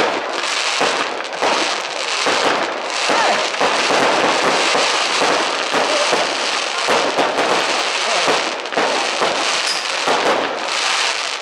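Fireworks display going off: a dense, continuous crackle of many sharp bursts, with no real pause.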